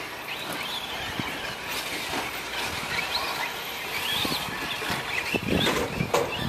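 Electric 1/10 short-course RC trucks racing: their motors whine, rising and falling in pitch as they accelerate and brake. Near the end, knocks and rumbles of the trucks hitting the track come in louder.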